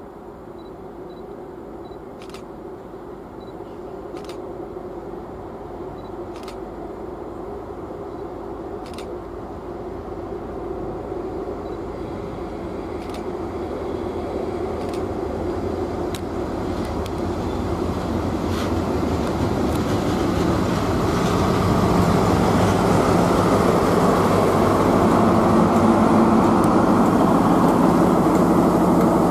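Class 43 HST (InterCity 125) arriving at low speed, its diesel power cars running with a steady engine note that grows louder as the train comes up to and along the platform. There are a few faint clicks in the first half.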